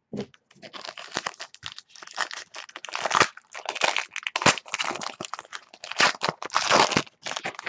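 Wrapper of a Panini Black Gold trading-card pack crinkling and tearing as it is opened by hand: a dense, irregular run of crackles and rustles with brief pauses.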